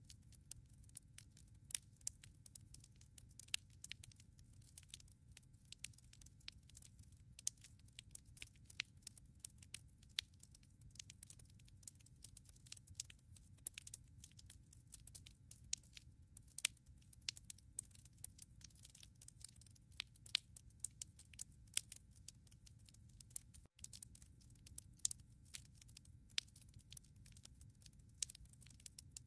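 Wood fire crackling in a fireplace: irregular sharp pops and snaps over a low, steady rumble of the flames. The sound cuts out for an instant once near the end.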